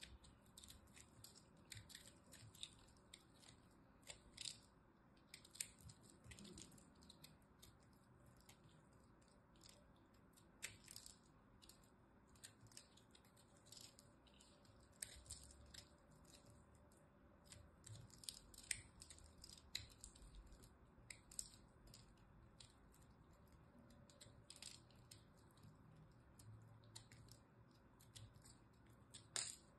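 A small blade cutting and shaving into a dry, crumbly soap block, making many quick, crisp, irregular crackling clicks as pieces break off.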